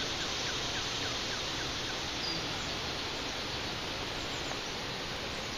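Steady rush of creek water flowing fast under a bridge, with a bird giving a short run of faint chirps that ends about two seconds in.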